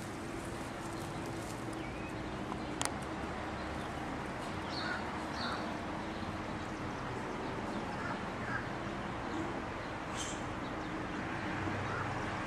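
A bird calling in a handful of short, high notes over a steady outdoor background hiss and a faint low hum, with a single sharp click about three seconds in.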